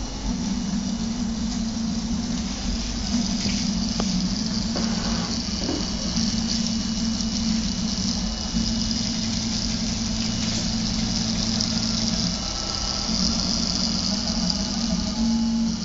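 RepRap Prusa Mendel 3D printer printing: its stepper motors hum, the pitch stepping up and down every second or two as the moves change, over a steady hiss.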